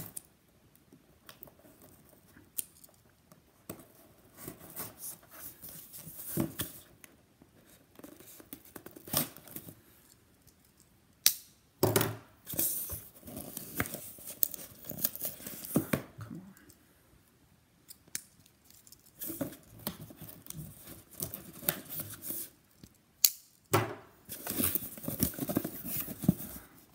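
Cardboard shipping box being handled and opened by hand: scraping and tearing of the tape and flaps, with a few sharp clicks and knocks among the rustling.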